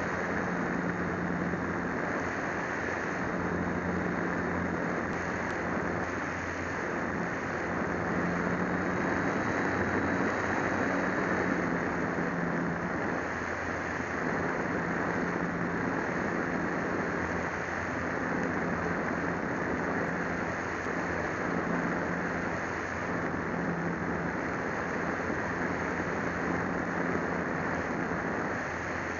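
Old Fogey RC plane's electric motor and propeller running in flight, a steady drone with a constant hum under rushing wind noise, picked up by a small camera mounted on the airframe.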